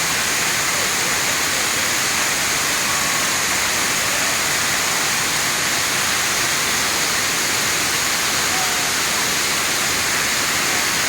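Waterfall: a steady, even rush of water falling over rock, with no breaks.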